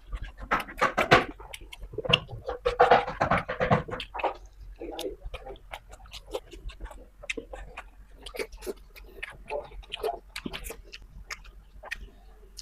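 Close-miked chewing and lip-smacking of someone eating beef dendeng: a run of quick wet mouth clicks and smacks, busiest in the first few seconds and sparser afterwards.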